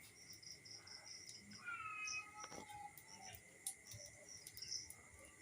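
Faint animal chirping in the background: a run of quick high chirps, with a short pitched call about two seconds in.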